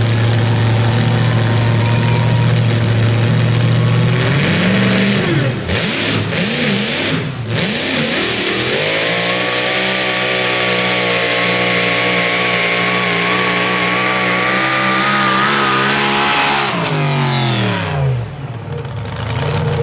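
Pulling vehicle's engine revving hard: it runs steady, wavers as the throttle comes and goes, then climbs and holds a high, steady pitch for about eight seconds with a slowly rising whine on top, before the revs fall away quickly near the end.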